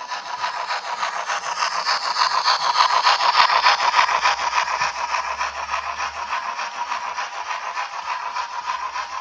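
Model railway train, a steam-outline locomotive hauling lit Pullman coaches, running close past on track: a steady rolling rattle of wheels on rail with rapid clicking and a constant motor whine.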